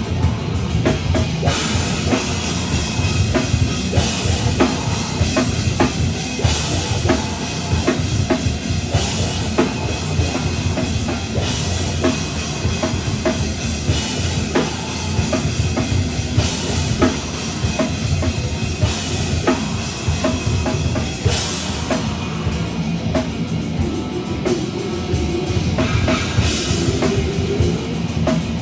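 Live metal band playing an instrumental passage: a drum kit driving hard and dense, with a cymbal crash about every two and a half seconds, over distorted electric guitars and bass.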